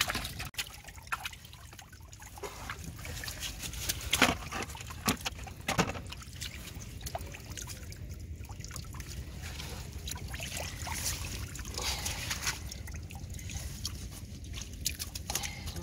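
Water sloshing and trickling in the flooded compartment of a small wooden boat holding live prawns, with a few short, sharp clicks about four to six seconds in.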